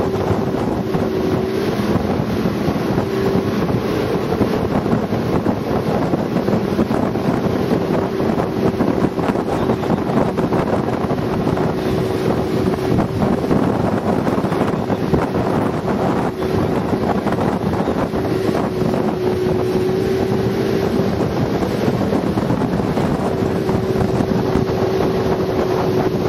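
Motorboat engine running steadily at cruising speed, a constant drone with a held pitch, with wind buffeting the microphone.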